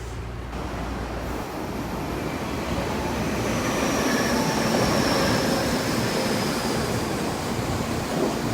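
Tokyo Metro 7000-series electric train running on the rails, its rumble and wheel noise growing louder over the first few seconds. A faint high whine falls slowly in pitch through the middle.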